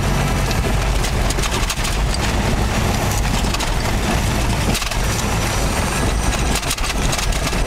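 Cabin noise of a 1985 Toyota 4Runner driving on a dirt road: a steady low engine and tyre rumble with many small rattles and knocks.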